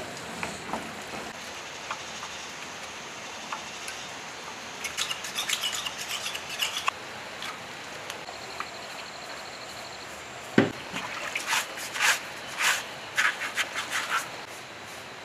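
Fluid pouring from a metal jerry can onto a diesel engine block, then a bristle brush scrubbing the block. The scrubbing comes as a run of short rasping strokes over the last few seconds, after a single knock about ten and a half seconds in.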